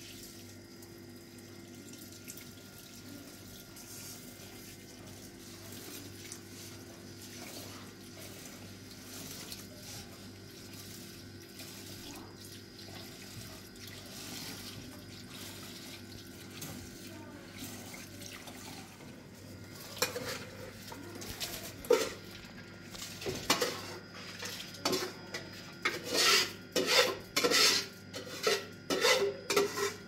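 Steady running-water hiss with a low hum. About two-thirds of the way in, it gives way to a rapid, irregular series of sharp clinks and clatters of hard objects knocking together.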